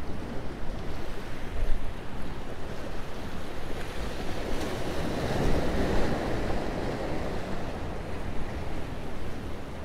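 Surf washing against the boulders of a rock jetty, with wind buffeting the microphone; a bigger wash swells up about five seconds in and fades.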